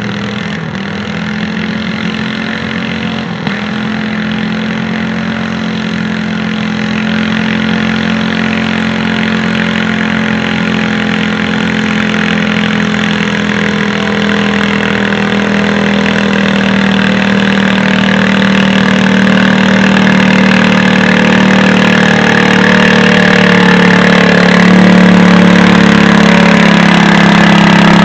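Modified garden tractor engine running hard under load while pulling a weight-transfer sled down the track, holding a fairly steady pitch and growing steadily louder as it comes closer.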